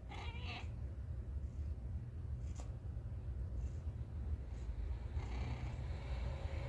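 Domestic tabby cat purring steadily in a low, pulsing rumble. A brief high chirp sounds right at the start.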